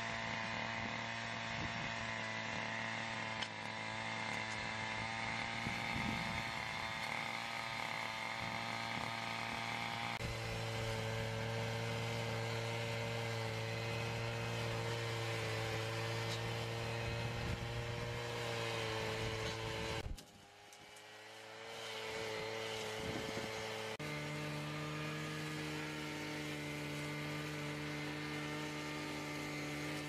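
Backpack brush cutter's small engine running steadily at high speed, its pitch shifting a little a few times. About two-thirds of the way through, the sound drops away for a moment, then builds back up to a steady run at a slightly different pitch.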